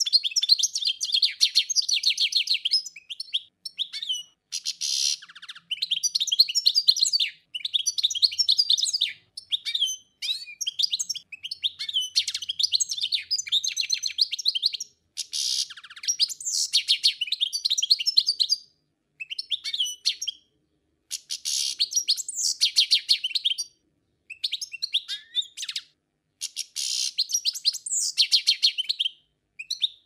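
Songbird singing long phrases of rapid, high twittering notes, each phrase lasting a few seconds with short pauses between.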